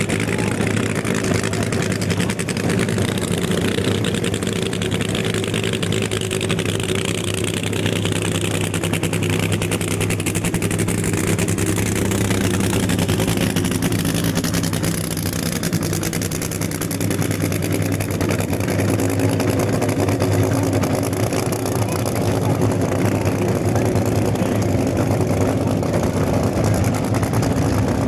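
Drag-racing funny car engines running steadily at idle, a deep even engine note with no full-throttle launch. It grows somewhat louder a little past the halfway point.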